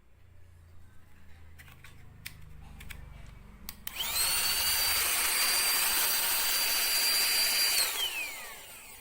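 Portable mini vacuum cleaner switched on about four seconds in, its small motor running with a high whine and rushing air for about four seconds, then switched off, the whine falling as the motor spins down. A few clicks of handling come before it starts.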